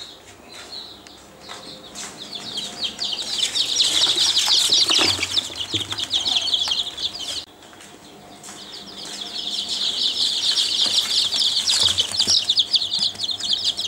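A brood of chicks peeping in rapid, high-pitched chirps, many overlapping, with a brief lull about halfway through.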